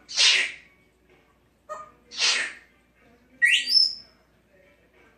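Congo African grey parrot sneezing twice, two short hissing bursts about two seconds apart, then giving a short upward-gliding whistle.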